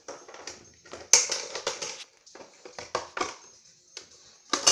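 Hard plastic toy pieces clattering and clicking in irregular short bursts as a toy drink dispenser and toy ice cubes are handled. The loudest rattles come about a second in and again near the end.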